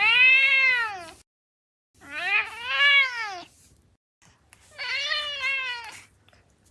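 Domestic cat meowing three times: long, drawn-out meows that each rise and then fall in pitch.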